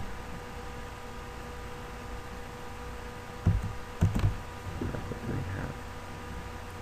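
Two quick clicks at a computer, about half a second apart past the middle, over a steady electrical hum and room tone.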